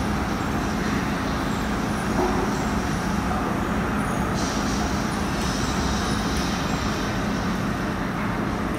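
Steady low rumble of background noise with a constant hum, unchanging throughout.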